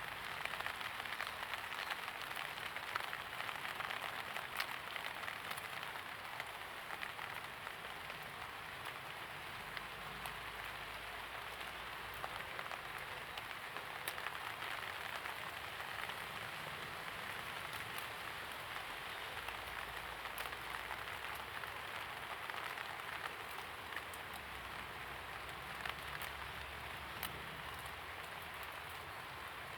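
Steady light rain falling on surfaces, a continuous patter with many small individual drop ticks.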